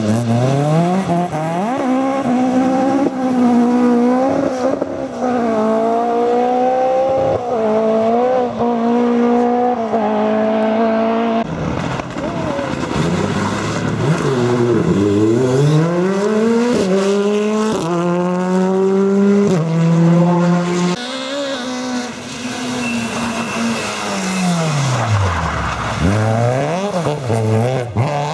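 Rally cars racing past one after another on a stage, engines revving hard with the pitch climbing and then dropping at each gear change. The pitch swells and falls away as each car approaches and passes, and the sound cuts abruptly from one car to the next a couple of times.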